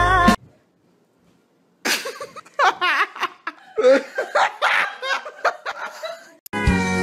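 Loud laughter in repeated fits, with wavering, rising and falling bursts, after a second or so of silence. Music plays briefly at the start and starts again near the end.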